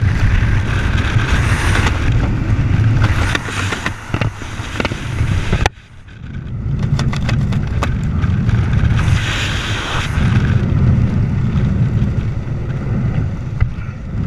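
Vehicle moving, with a steady low rumble of road and wind noise. The noise cuts out suddenly a little before halfway, then swells back up.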